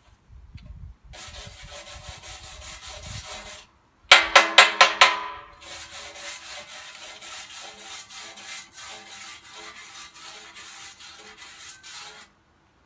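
Steady crackling of a welding arc laying beads on a steel lawn roller, in two runs of a few seconds each. Between them comes a quick burst of about six loud, ringing metal strikes on the roller.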